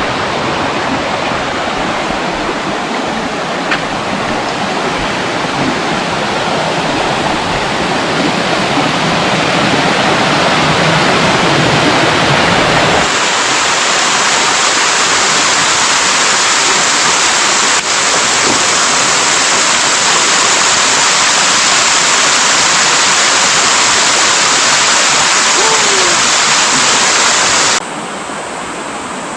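Mountain stream water rushing over rocks in small cascades, a loud steady rush. About 13 seconds in the sound changes abruptly to a brighter, hissier rush, and near the end it drops suddenly in level.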